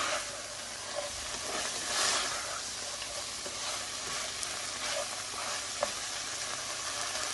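Lamb and onions sizzling in a karahi once the cooking water has boiled away, the meat now frying in its own fat. A steady hiss that swells briefly near the start and again about two seconds in.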